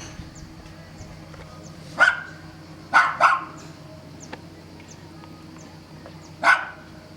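A dog barking in short, sharp barks: one about two seconds in, a quick pair about a second later, and another near the end.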